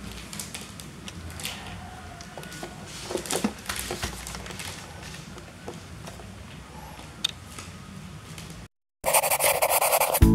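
Light handling noise: small clicks and scrapes as a plastic Mini 4WD car and its cardboard box are moved about on a table. Near the end the sound cuts out briefly and a loud rushing intro sound effect begins.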